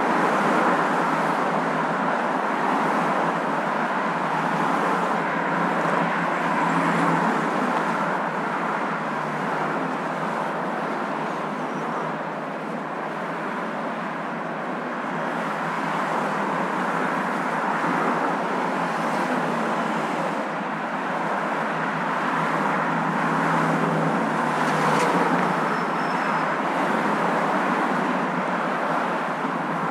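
Steady road noise of a moving car, an even hiss that swells and eases slightly every few seconds.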